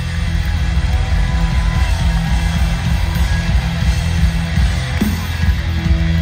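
Loud live rock from a two-piece band: a distorted bass guitar riff with a pounding drum kit, heard through a stadium PA from within the crowd.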